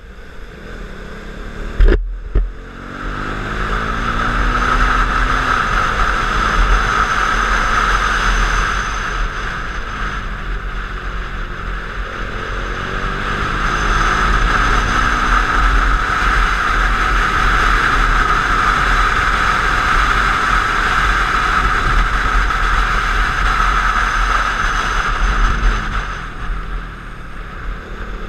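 KTM 390 Duke's single-cylinder engine at speed, heard from a helmet or bike-mounted camera under heavy wind rush. The pitch climbs three times as the bike accelerates. There is a sharp thump about two seconds in.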